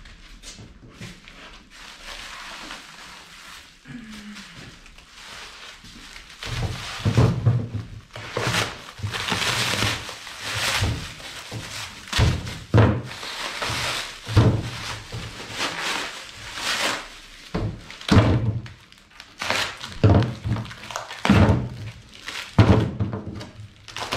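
Packaging being pulled open and heavy parts being handled: repeated knocks and low thuds with rustling between them, busier from about six seconds in.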